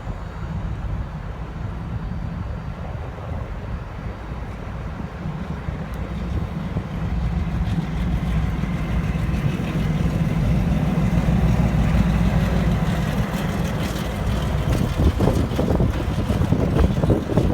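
V/Line N-class diesel-hauled passenger train running out of the station: a steady low rumble that grows louder about ten seconds in. Sharp clatter comes near the end.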